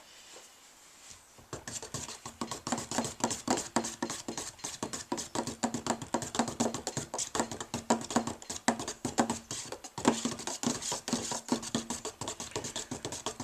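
A tin of old, thick paint being stirred by hand with a stirrer: a rapid, uneven run of scraping and tapping against the tin that starts about a second and a half in and keeps going.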